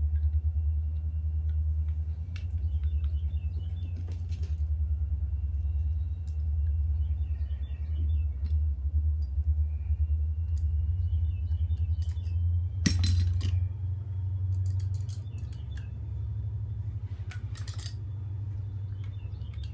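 Small metal parts and tools clinking and rattling while an RC car's exhaust pipe is being refitted, with two louder clatters about two-thirds of the way through and near the end, over a steady low hum.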